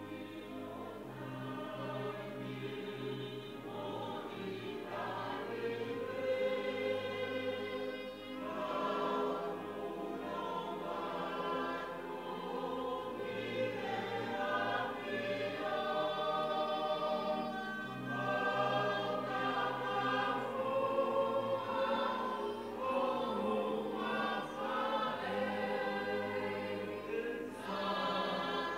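A church congregation of men's and women's voices singing a hymn together in Tongan, in long held notes.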